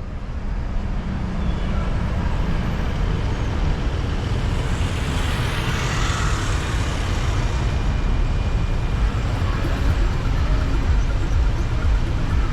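Road traffic noise: vehicles running by over a steady low rumble, with one louder hiss swelling and fading about five to seven seconds in, like a vehicle passing close.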